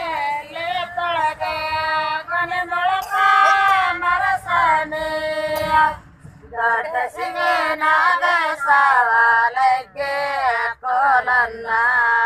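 Women singing a Kannada Gauri festival folk song, sung lines with a short pause about six seconds in.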